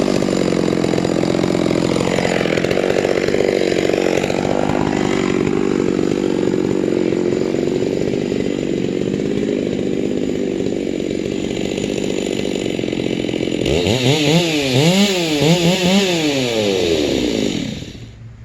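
Chainsaw on a chainsaw mill ripping lengthwise through a white spruce log, the engine held under load at a steady, pulled-down pitch. Near the end the saw is revved up and down several times and then drops away.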